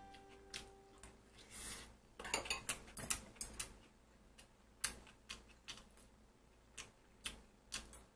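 Metal chopsticks clicking and scraping against a rice bowl and a stainless-steel pan while someone eats. The sharp taps come irregularly, busiest between about two and four seconds in.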